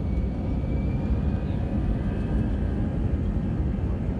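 Jet airliner engines and runway rumble heard from inside the cabin as the plane rolls along the runway: a loud, steady rumble with a faint whine climbing slightly in pitch.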